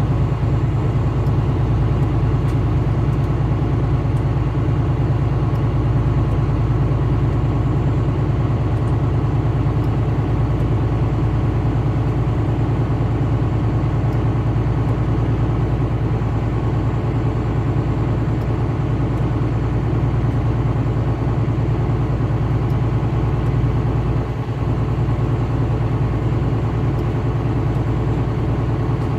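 Steady low drone of a vehicle travelling on the highway: engine and road noise.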